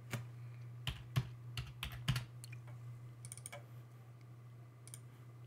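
Computer keyboard typing: about six sharp key strikes in the first two seconds, then a few lighter clicks, over a steady low hum.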